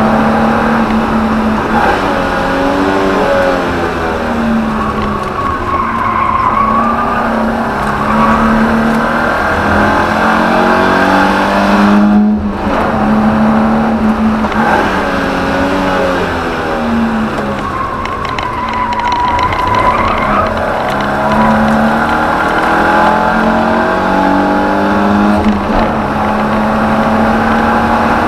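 BMW E30 318i's M10B18 1.8-litre four-cylinder engine heard from inside the cabin under hard track driving, the revs climbing and falling through the gears, with a brief break in the engine note about twelve seconds in. Tyres squeal twice through corners.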